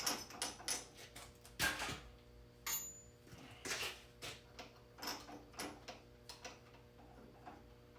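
Irregular light clicks and knocks, about a dozen, from a drill and its bits being handled and set up.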